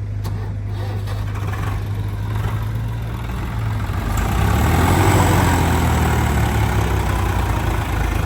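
Heavy diesel engine running steadily, getting louder and working harder from about four seconds in.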